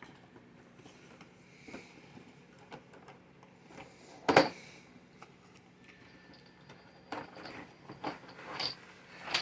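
Cardboard board-game box being opened and handled: scattered light knocks and rustles, with one sharp, louder snap about four seconds in and several more clicks near the end.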